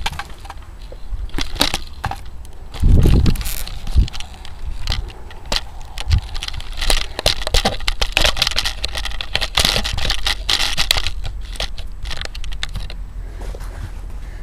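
Handling noise from a handheld camera being swung about: rustling, crackles and scrapes, with a loud dull thump about three seconds in and a few lighter knocks after it.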